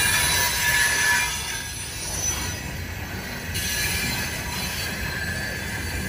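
Loaded coal hopper cars rolling past, steel wheels rumbling on the rails with a high squeal from the wheels, loudest in the first second or so.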